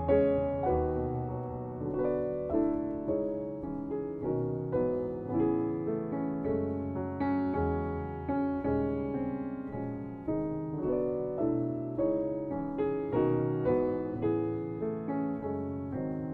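Background music: a piano playing a steady run of notes, each struck and fading away.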